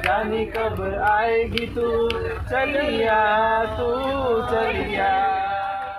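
A song sung by male and female voices, with sharp percussive taps and a low steady rumble underneath.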